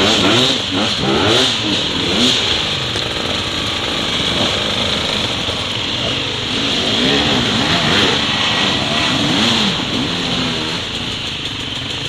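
Enduro dirt bike engines revving up and down in short bursts of throttle, the pitch rising and falling again and again as the bikes pick their way along a rough, narrow trail.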